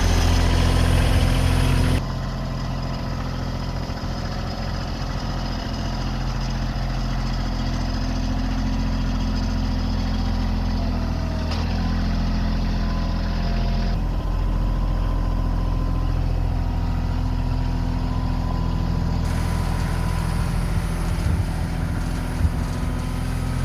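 Bobcat CT2025 compact tractor's diesel engine running steadily, with its low hum shifting abruptly in level and tone a few times.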